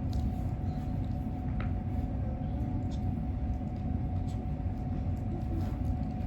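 Steady low rumbling hum with a thin steady tone above it and a few faint ticks.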